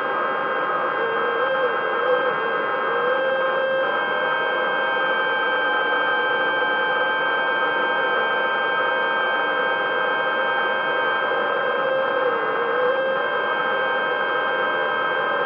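Small electric motors running steadily, a hum with several held tones, a couple of them wavering slowly up and down in pitch.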